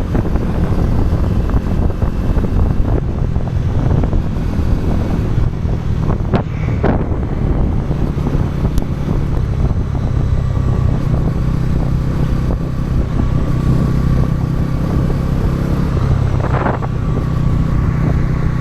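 Bajaj Pulsar NS400Z's single-cylinder engine running through its stock exhaust at a steady engine speed while riding, with wind noise on the microphone. Two brief sharper sounds stand out, about six and a half and about sixteen and a half seconds in.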